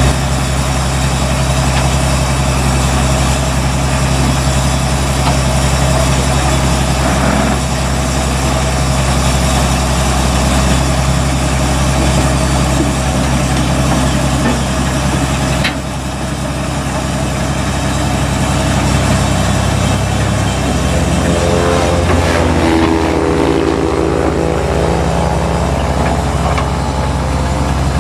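Engine of a tracked rice combine harvester running steadily as the machine crawls along. About halfway through there is a sharp click, the sound drops, then builds back up, and a shifting whine comes in near the end.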